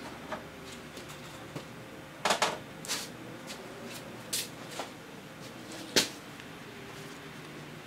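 Gloved hands picking up and handling two outboard carburetors on a workbench: scattered small clicks and knocks of metal parts, with a cluster about two seconds in and the sharpest click about six seconds in.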